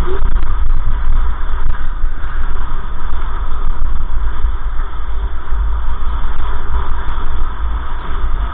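Steady rumble of a car driving at speed, engine and tyre-on-road noise heard from inside the cabin through a dashcam microphone.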